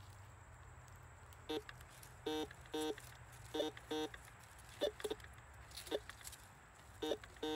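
Metal detector sounding about ten short electronic beeps at uneven intervals, some longer or doubled, as its coil sweeps back and forth over a buried metal target.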